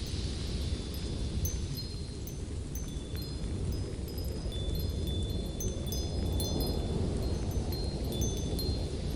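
Steady low rush of light wind, with small wind chimes tinkling on and off: many short, high, clear tones at several different pitches.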